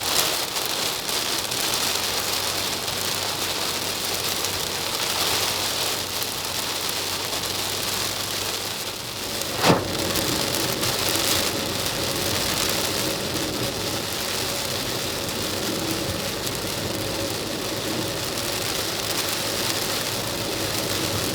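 Heavy rain pouring on a camper van, a loud steady rush of rain noise that starts abruptly, with a single sharp knock about ten seconds in.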